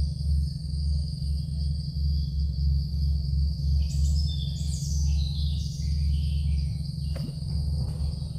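A steady high-pitched insect drone over a low, pulsing rumble, with a scatter of high chirps about halfway through and a short knock near the end.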